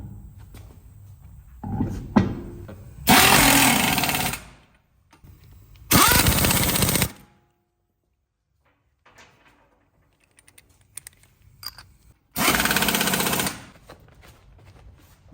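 Impact wrench hammering in three bursts of a second or so each, with a rapid rattling beat, and small clicks and knocks between the bursts.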